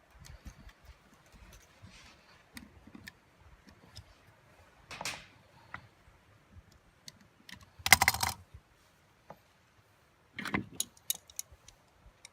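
Workbench handling of metal tools and cable parts: scattered light clicks and clinks, a louder rattling clatter about eight seconds in, and a quick run of clicks near the end.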